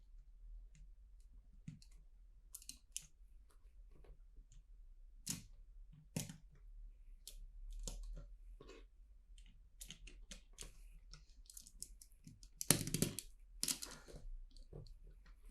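Plastic LEGO bricks clicking and clattering as they are handled and pressed together, in scattered small taps, with a louder burst of clatter about two-thirds of the way through.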